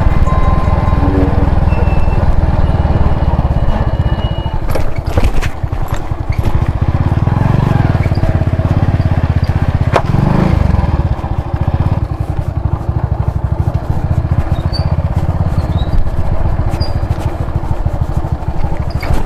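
Motorcycle engine running close by with a steady rapid putter, the revs swelling briefly about eight to eleven seconds in.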